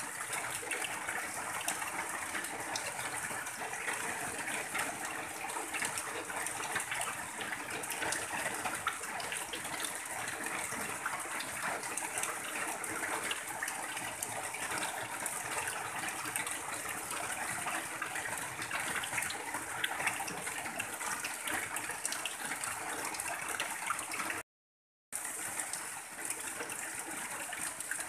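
Steady heavy rain on a tin roof, with runoff pouring off the roof edge in a stream and splashing. The sound cuts out completely for about half a second near the end.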